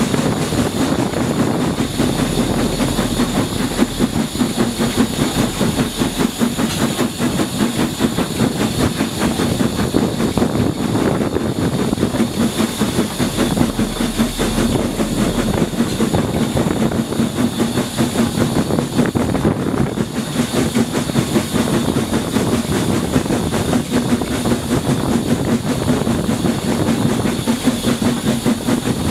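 Steam tank locomotive running at the head of a passenger train, heard from just behind it: steady steam exhaust and hiss with wheels clattering over the rail joints. Wind buffets the microphone in low gusts at times.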